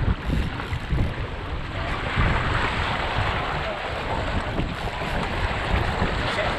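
Wind buffeting the microphone over the rushing and splashing of water along a sailing dinghy's hull under way, with the hiss growing louder about two seconds in.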